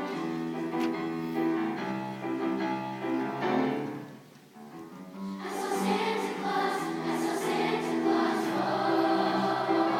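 A middle school choir singing together, holding long notes. The singing drops away briefly about four seconds in, then comes back louder.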